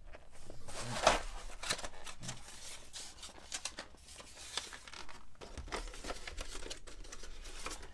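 Board-game pieces being handled and packed away: a cardboard player board pressed down into its tray, with rustling, sliding and light knocks. The sharpest knock comes about a second in.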